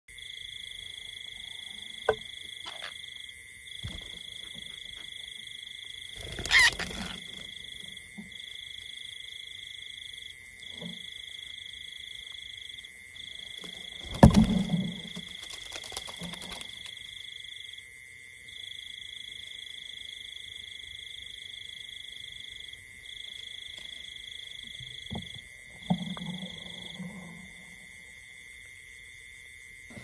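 A steady high two-tone drone, its upper tone breaking off and resuming every few seconds, with a few short louder calls and knocks over it. The loudest are about six and fourteen seconds in.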